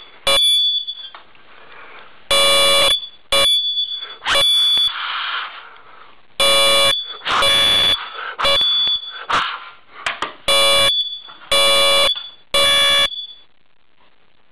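Smoke alarm going off from cigarette smoke, its piezo horn sounding loud, shrill beeps about half a second long, repeating roughly in groups of three. A softer rushing noise fills some of the gaps between beeps.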